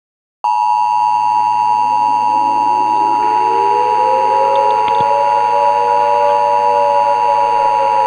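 Emergency Alert System attention signal: a steady two-tone beep of two close pitches sounding together, starting about half a second in after a short silence. Under it run a low hum and a fainter tone that slides upward over a few seconds and then holds.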